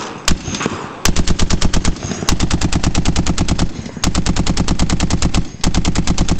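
.50-calibre heavy machine gun firing: two single shots, then rapid bursts of about ten rounds a second beginning about a second in, broken by short pauses near two, four and five and a half seconds.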